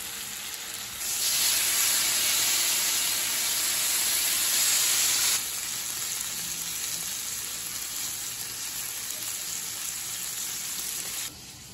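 Bacon frying on an electric griddle, a steady sizzle that grows noticeably louder about a second in and drops back a few seconds later.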